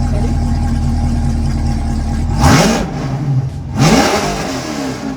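Corvette C8's V8 engine idling, then revved twice in short blips about two and a half and four seconds in, each time dropping back to idle.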